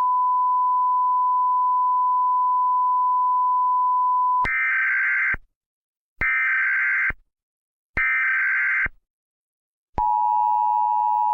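Emergency Alert System broadcast tones: a steady single-pitch beep for about four and a half seconds, then three short bursts of buzzing digital SAME header data about a second apart, then the two-tone EAS attention signal starting about ten seconds in.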